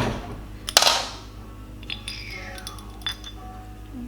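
Aluminum bait mold being opened and handled: a sharp metal knock about a second in, then light metallic clinks and taps.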